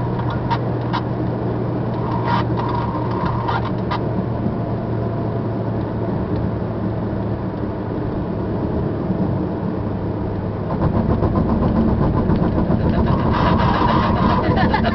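Car engine and tyre noise heard inside the cabin while driving at steady speed; about ten seconds in the engine note shifts and grows louder.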